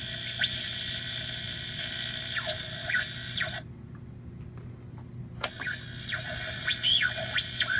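Gemmy animated Halloween radio prop playing a radio-tuning static effect: hiss with thin whistling squeals gliding up and down. About halfway through the static cuts out for a couple of seconds to a low hum, then returns with a click.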